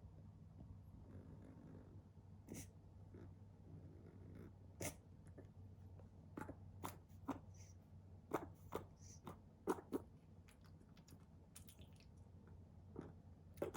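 Puppy making a series of short, faint hiccup-like clicks at irregular intervals, around one a second and sometimes closer together. The owner is unsure whether these are hiccups or reverse sneezing.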